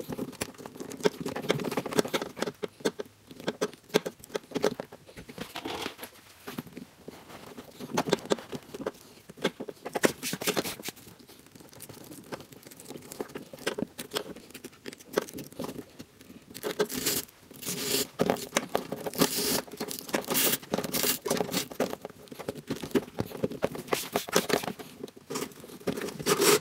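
Handling noise of a braided-loom wiring harness being worked through a rubber grommet into a car door: irregular rustling, scraping and clicking of wires and plastic connectors against the door. It gets busier and louder in the last third.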